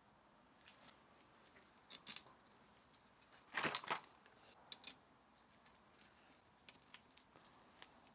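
Light metallic clicks and clinks of small steel gearbox parts being handled and set in place on the open gearbox casing, with a short rattling cluster about three and a half seconds in.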